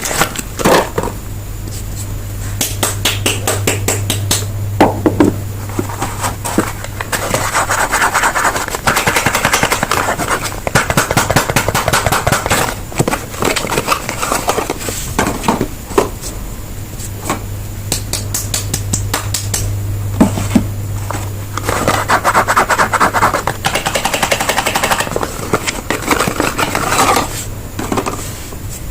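Soap bars being unwrapped: packaging crinkling and crackling in two long stretches, between many sharp taps and clicks, over a low steady hum.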